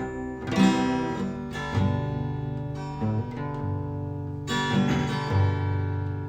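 Acoustic guitar strummed, with chord changes every second or so and no singing.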